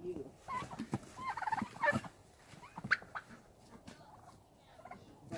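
Domestic turkeys calling: a few short pitched calls in the first three seconds, then only faint scattered ticks.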